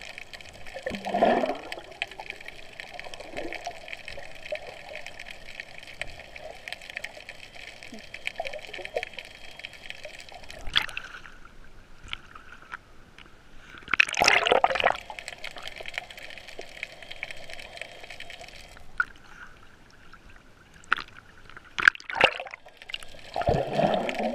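Sea water heard through an action camera's underwater housing: a steady underwater hum broken by short gurgling, sloshing bursts. The camera breaks the surface about eleven seconds in, the hum drops out, and it comes back with a louder splash as the camera goes under again about three seconds later.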